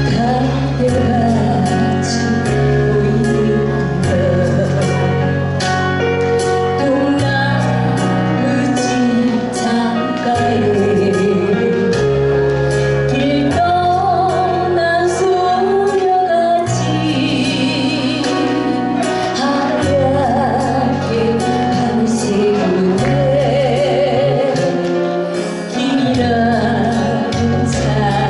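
A woman singing a slow Korean ballad with heavy vibrato over accompaniment of sustained bass and keyboard and a steady drum beat.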